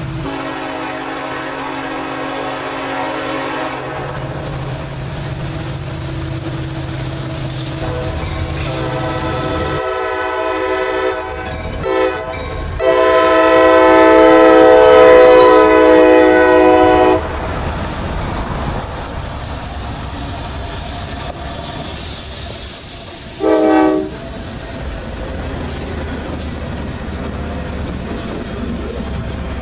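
Diesel freight locomotive air horns sounding several times over the steady rumble and clatter of rolling freight cars. A chord is held for the first few seconds, broken blasts follow later on, then the longest and loudest blast comes in the middle and a short blast near the end.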